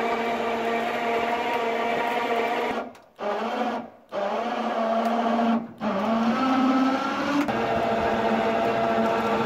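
A small motor whining steadily at one pitch, cut off suddenly three times for a moment, with the pitch rising slightly after the middle.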